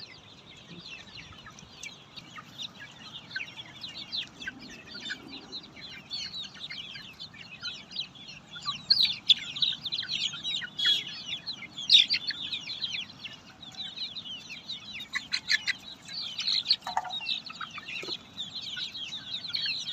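A brood of black Australorp chicks peeping together: a dense, continuous chorus of short high-pitched peeps, getting louder about halfway through.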